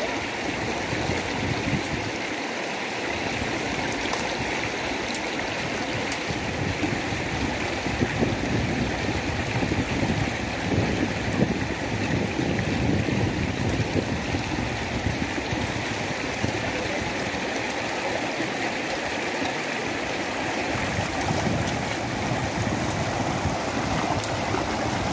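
A rocky mountain stream rushing steadily over stones.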